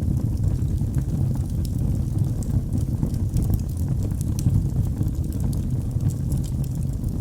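Fire burning in a fireplace: a steady low roar with scattered sharp crackles and pops.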